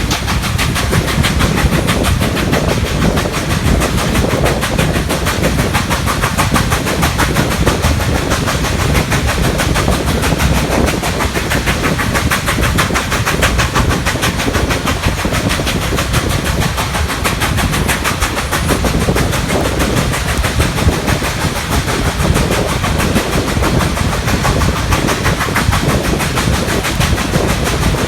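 Nickel Plate Road 765, a 2-8-4 Berkshire steam locomotive, working hard up a grade with a rapid, steady beat of exhaust chuffs and the clatter of the train.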